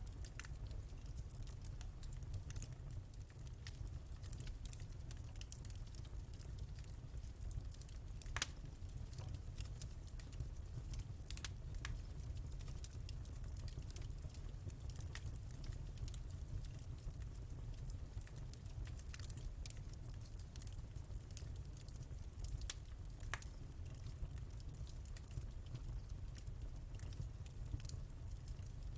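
Wood fire crackling in a fireplace: irregular sharp pops and snaps over a steady low rumble, with a few louder pops about 8 and 11 seconds in.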